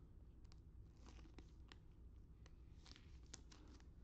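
Faint handling of trading cards and a clear plastic card sleeve: soft rustles and a few light, sharp clicks spaced irregularly.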